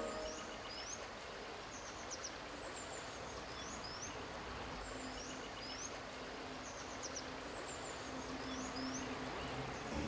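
Steady rush of a flowing river, with a small songbird calling over it: short high chirps and quick chattering trills, repeated every second or so.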